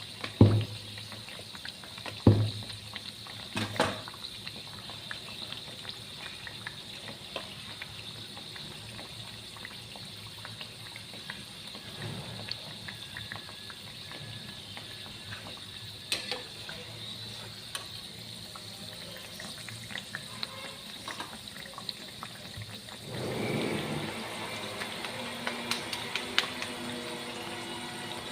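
Aloo kachori deep-frying in hot mustard oil in a kadhai, with a steady sizzling hiss and crackle. There are a few sharp knocks in the first four seconds. Near the end the sizzle grows louder and some steady humming tones join it.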